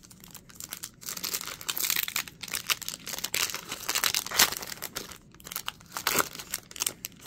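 The foil wrapper of a 2022 Topps Chrome Sonic baseball card pack being torn open and crinkled by hand: a dense crackle with a few sharper rips.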